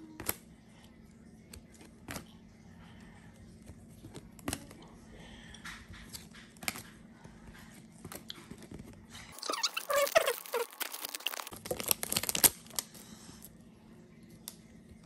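Chromium trading cards being handled and flipped one by one, with a short sharp click or snap about every two seconds as each card is slid to the back of the stack. About two thirds of the way in comes a few seconds of loud crinkling, tearing-like rustle, typical of a foil pack wrapper or cards being shuffled.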